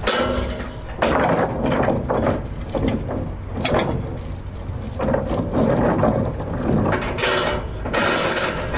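A mechanism clattering irregularly, with many short knocks and rattles.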